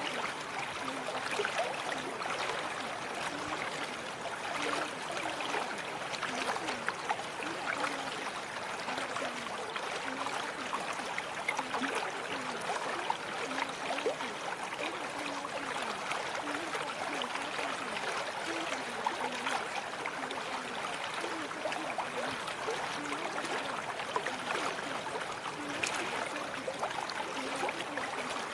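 Steady running water, like a stream or trickle: an even rushing hiss with fine dripping ticks through it, and faint short low notes scattered underneath.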